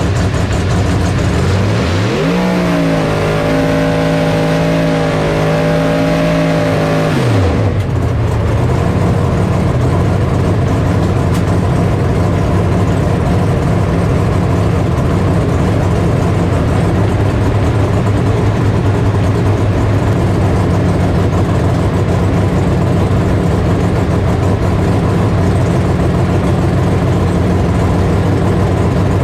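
Drag car's engine heard from inside the car. It revs up about two seconds in and holds high rpm for about five seconds in a burnout, then drops back suddenly to a steady idle for the rest.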